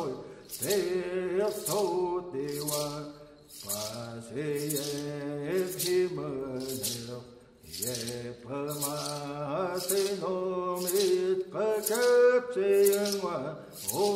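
Men's voices singing a Hopi chant-like song in unison, with long held notes and short breaths between phrases. A regular hissing percussive stroke sounds along with them about every three-quarters of a second.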